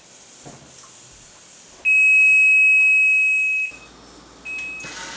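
Handheld electronic stud finder beeping as it is slid over a wall: one long steady beep of nearly two seconds, starting about two seconds in, then a short beep of the same pitch near the end. This is its signal that it has found a wooden stud.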